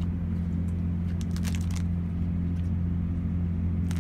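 Steady low drone of an idling truck engine, with a few faint crackles and clicks of cards and a foil booster pack being handled about a second in.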